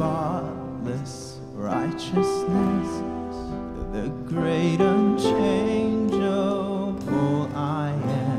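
Church worship band playing a slow song: a singer's voice with vibrato over sustained chords and acoustic guitar.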